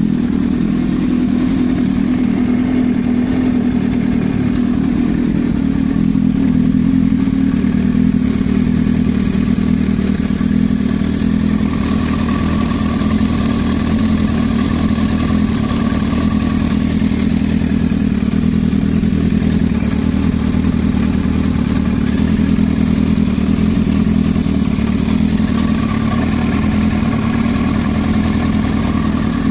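Yamaha R1's inline-four engine running steadily, with a knock from inside the engine that is the fault being shown.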